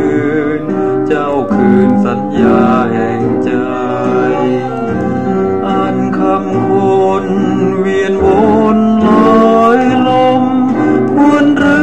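Old Thai pop song playing from a vinyl LP through a mono cartridge: continuous music with melody instruments over an accompaniment.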